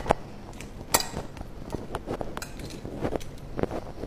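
Small metal spoon clinking and scraping against a ceramic dish while tossing raw prawns in turmeric, with two sharper clinks in the first second.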